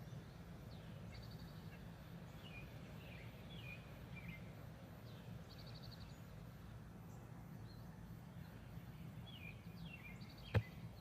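Faint backyard songbirds chirping: repeated short down-slurred chirps with three brief rapid trills, over a steady low hum. A single sharp click near the end.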